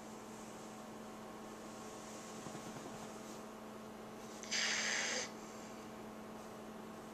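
Sleeping dog snoring: a soft breath, then one louder, breathy snore lasting under a second about four and a half seconds in. A steady low hum runs underneath.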